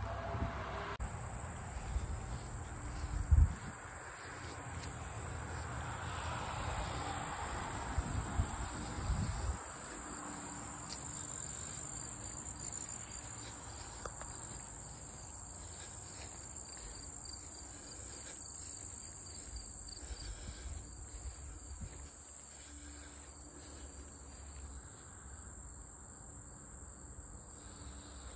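A steady high-pitched insect chorus sets in about a second in and carries on throughout. A few low bumps hit the microphone in the first ten seconds.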